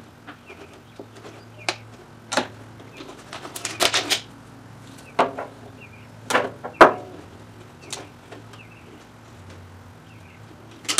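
Thin plastic water bottles and their caps being handled and set down on a wooden table: scattered clicks, taps and crinkles, with a quick cluster of them about four seconds in, over a faint low hum.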